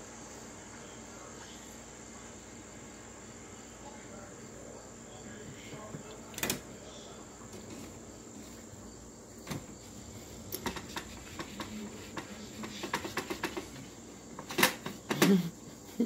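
A cat rubbing and bumping its head against a plastic Keurig coffee maker: scattered soft knocks and clicks that start about six seconds in, come thick and fast in the second half and are loudest near the end, over a steady faint high-pitched whine.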